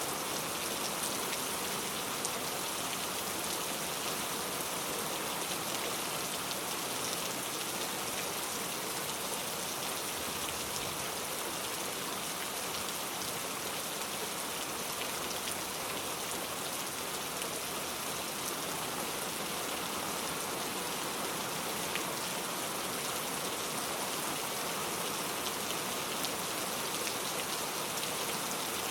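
Steady heavy rain falling on a window, an even hiss with a few sharper drop ticks here and there.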